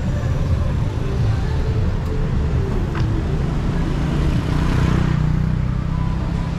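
Road traffic close by: vehicle engines running in a steady low rumble, with one vehicle passing louder about five seconds in.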